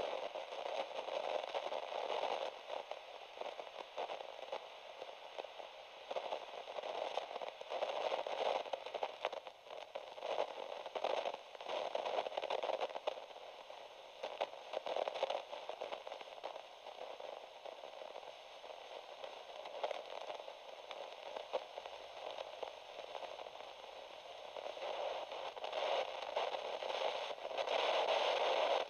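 Radio static: a crackling hiss that swells and fades every couple of seconds, dipping in the middle and growing louder again near the end.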